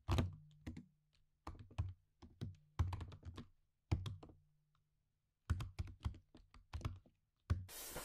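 Laptop keyboard being typed on: irregular clusters of keystrokes, with a pause of about a second midway.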